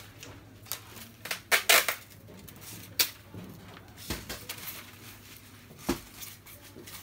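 Clear plastic sheeting over a speaker cabinet crinkling and rustling in short bursts, loudest about a second and a half in, with a sharp click around three seconds in and a couple of light knocks later.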